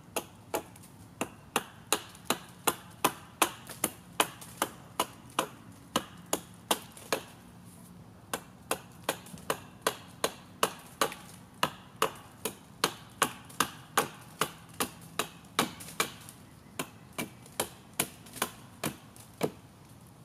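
A hatchet chopping glancing strokes down the side of an upright wooden pole, shaving it flat on one face. Quick, even chops, about two to three a second, with two short pauses, about halfway through and about three-quarters of the way through.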